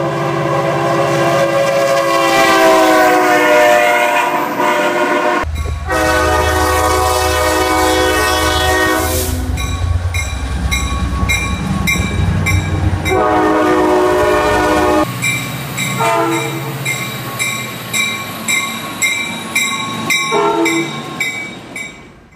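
NCDOT F59PH diesel locomotive sounding its multi-chime air horn: two long blasts, then shorter ones. The diesel engine rumbles low during the second blast and the minute after, and from about ten seconds in a bell rings steadily at about two strokes a second as the train arrives.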